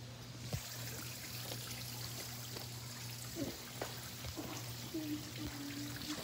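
Quiet steady trickling of water, the pool's spa spilling over into the pool, under a steady low hum, with a few light handling knocks.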